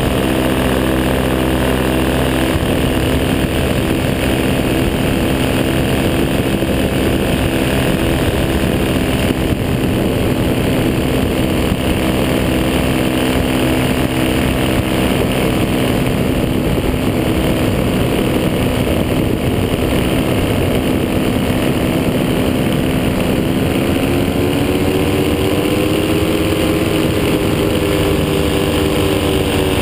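Paramotor engine and propeller running steadily in flight, a continuous drone. About three-quarters of the way through, the engine speeds up and its pitch rises, then holds at the higher speed.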